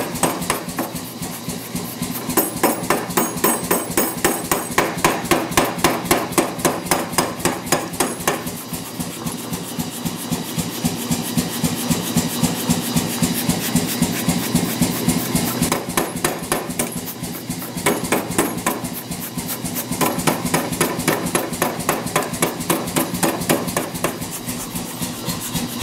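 Power hammer striking a glowing steel bar in a rapid, even run of blows, several a second, over the machine's steady running hum. The blows are drawing out the reins of a pair of flat-jaw tongs.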